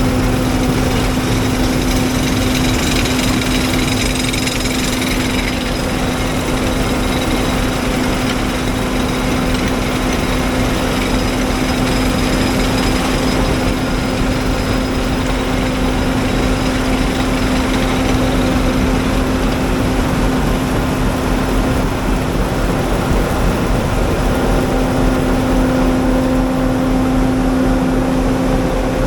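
A combine harvester running steadily at constant speed, with a steady engine hum and an even machinery drone.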